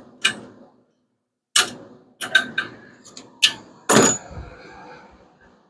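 Metal tools and engine parts knocking and clinking as they are handled: a run of sharp clicks, with a heavier clank about four seconds in.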